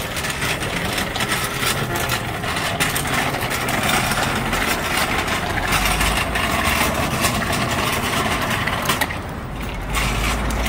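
Steady street noise of traffic running, with a constant rattling crackle from a child's bicycle and its training wheels rolling over a concrete sidewalk.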